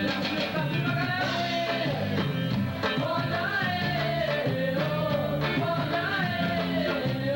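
A band playing a song with a lead singer's voice carrying the melody over a steady accompaniment.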